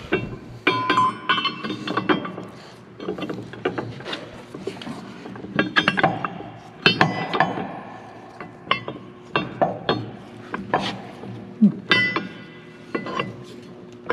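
A steel pin and a log arch arm's mounting bracket being fitted together by hand. Irregular metal clinks and knocks, some with a short ring.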